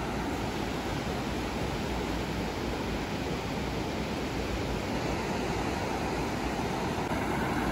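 Steady rushing of sea surf, an even wash of noise with no distinct breaks, swelling slightly near the end.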